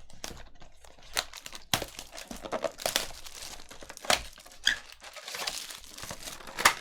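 Foil trading-card pack wrappers crinkling and tearing as Bowman Chrome packs are handled and ripped open, a busy run of irregular crackles and sharp snaps.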